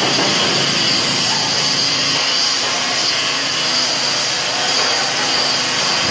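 A small petrol engine running steadily on a building site, with a steady high whine over it.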